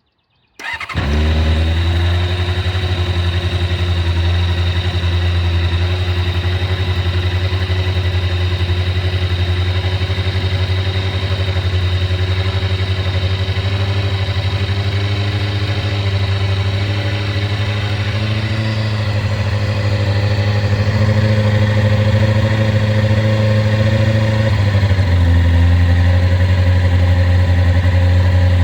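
1996 Kawasaki ZX-6R Ninja's inline-four engine starting cold, catching about a second in, then idling steadily. At about 25 seconds in, the idle note steps to a slightly different pitch and runs a little louder.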